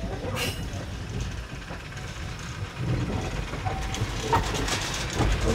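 Baguley-Drewry narrow-gauge diesel locomotive running as it draws a passenger train slowly in toward the platform. Its low rumble grows louder about halfway through as it nears.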